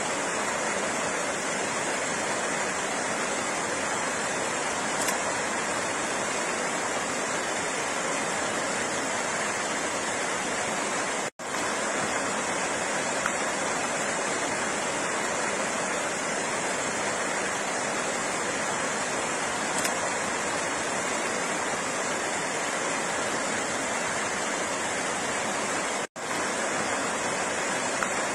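Flowing water rushing steadily, cutting out for an instant twice.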